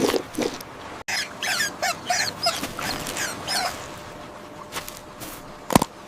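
A quick run of short, high-pitched, squeaky animal calls, each falling in pitch, lasting about two and a half seconds. A single sharp crack follows near the end.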